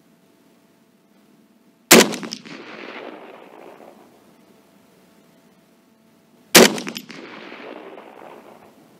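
Two shots from a Saiga-308 semi-automatic carbine in .308 Win, about four and a half seconds apart. Each is a sharp crack followed by an echo that trails off over about two seconds.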